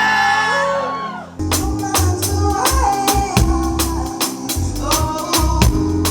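Live band starting a song: a held note fades out, then about a second and a half in, the drums and bass come in with a steady, even beat.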